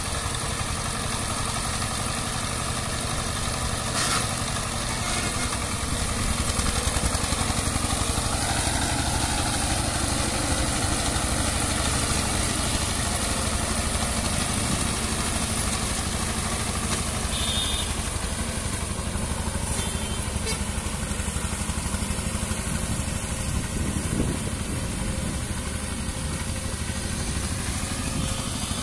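12 hp power tiller's single-cylinder diesel engine running steadily as it pulls the tilling implement through wet rice-field mud.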